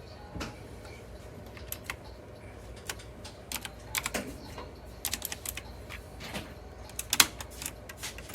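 Typing on an RK Royal Kludge S108 mechanical keyboard with clicky blue switches: irregular single keystrokes and short runs of clicks.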